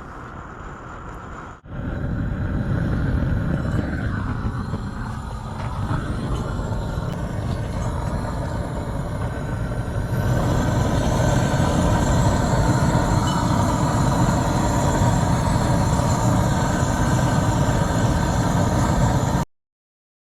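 Backhoe's diesel engine running steadily, growing louder about halfway through and cutting off abruptly near the end.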